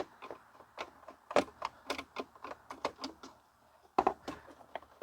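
Irregular clicks and knocks from a screwdriver backing out a screw and from handling the plastic housing of a Eureka Whirlwind vacuum being taken apart, with a few sharper knocks along the way.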